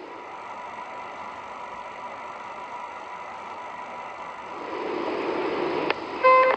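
Steady running hum and hiss of an H0-scale model train, with a thin whine and a swell in loudness about two-thirds of the way in. A click, then the short tones of a station announcement chime, near the end.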